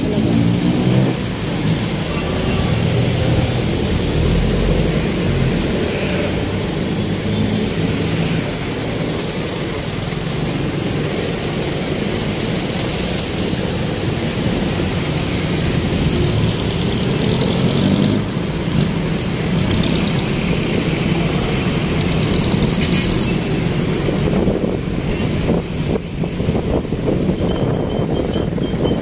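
Motorcycle engine running on the move, with steady wind and road noise over the microphone; the engine rises in pitch in the first couple of seconds. A few thin high squeals come near the end.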